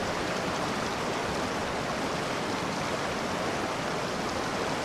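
Mountain stream rushing over rocks through small rapids: a steady, unbroken rush of water.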